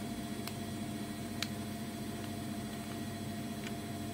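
Steady low room hum with a few faint plastic clicks, the clearest about a second and a half in, from handling the battery compartment of a small battery-powered bag sealer while AA batteries are fitted.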